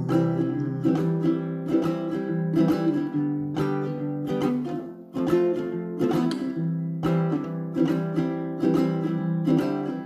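Baritone ukulele strummed in a steady rhythm, playing an instrumental break of C, G, F and C chords between the chorus and the next verse, with a brief dip in the strumming about halfway through.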